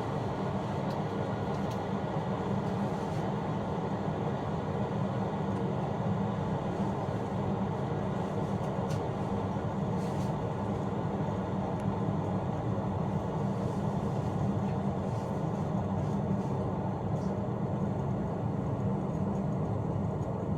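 Keurig single-serve coffee maker heating its water before the brew, a steady low hum that does not change.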